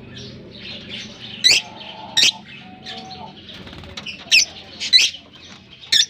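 A flock of lovebirds chattering, with about five sharp, shrill calls standing out over a steady background of chirping.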